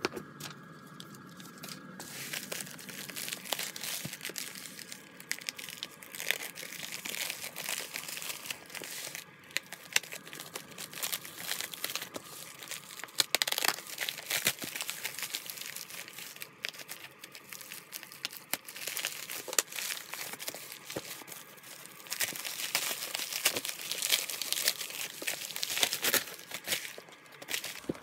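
Padded plastic FedEx Pak mailer crinkling and crackling as hands handle it and tear it open, with louder stretches about halfway through and again near the end.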